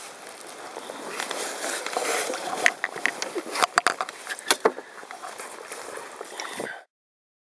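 Handling noise from a camera being picked up and moved: rustling against fabric and a bag, with several sharp knocks in the middle. The sound cuts off abruptly to silence near the end.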